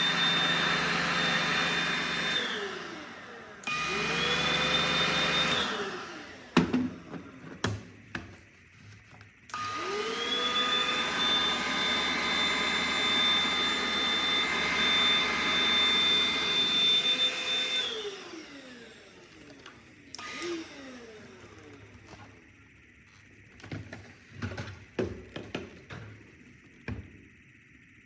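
Electric vacuum cleaner motor switched on and off several times. Each run rises to a steady high whine and then winds down falling in pitch: first briefly, then for about eight seconds in the middle. Clicks and handling knocks sound between the runs and after the last one.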